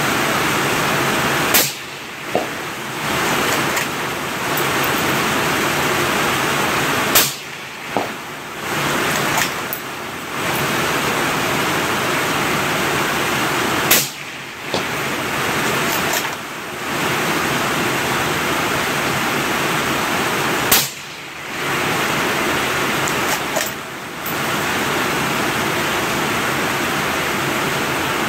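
Steady hiss of heavy rain, broken by four shots from a scoped rifle fitted with a suppressor, about seven seconds apart. The rain hiss drops out briefly after each shot.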